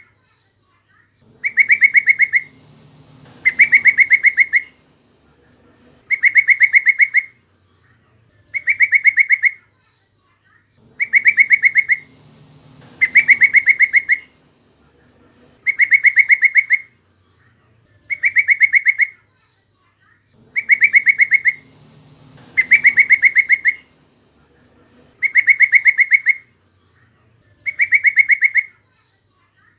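Yellow-vented bulbul (trucukan) calling: a rapid chattering run of notes about a second long, repeated about every two seconds in near-identical phrases, a lure call for other bulbuls.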